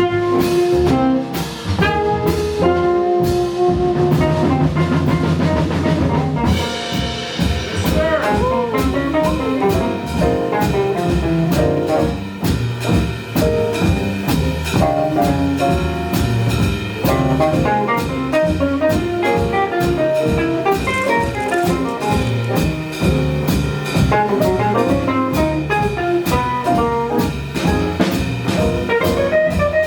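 Live jazz combo playing: a drum kit keeps time under bass and a melodic lead line with some bending notes.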